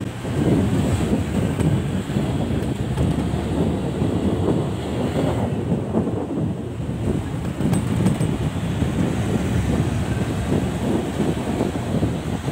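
Steady wind rushing over the microphone of a moving camera, with road and traffic noise underneath.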